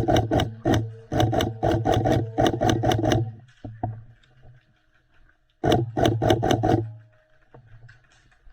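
Airsoft electric gun firing on full auto: a motor-and-gearbox whir carrying rapid, evenly spaced clicking shots. It fires several bursts over the first three seconds, then another burst of about a second a little past halfway.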